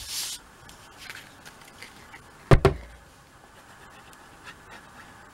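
Paper-crafting handling noises: a sheet of cardstock brushing across the work mat, then two quick sharp knocks on the tabletop about two and a half seconds in as a bottle of liquid glue and the card are handled.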